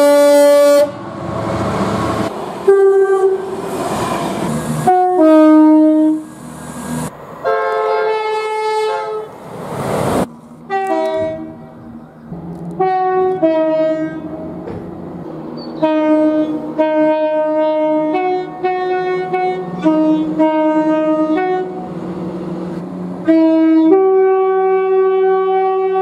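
Freightliner Class 66 diesel locomotive's horn sounding as it approaches, then the loud rush of the train passing, with more horn blasts over it. After a break, a passenger multiple unit sounds a long series of short two-tone horn blasts, alternating high and low notes, over a low steady engine hum.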